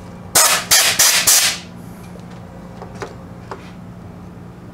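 Four short scraping hisses in quick succession, then two light metal ticks as the machined steel vise jaw is handled, over the steady low hum of the milling machine.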